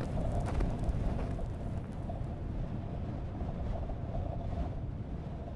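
Low, steady rumbling ambience with a faint hum, a few light crackles in the first couple of seconds, slowly fading out near the end.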